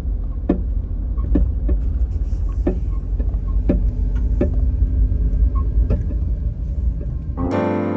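Kei van on the move: a steady heavy low rumble of road and engine noise with scattered light knocks. Piano music comes in near the end.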